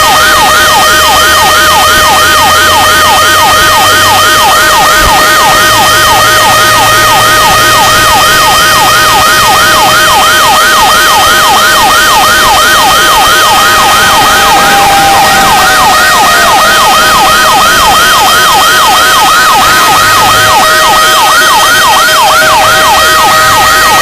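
Fire truck's electronic siren running loud on a rapid yelp, about three rising sweeps a second, with a steady high tone held underneath. Near the middle a second, slower siren wails down and fades.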